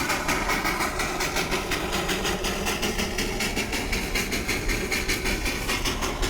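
A train running, with a fast, even rhythmic beat of about five strokes a second over a steady rumble.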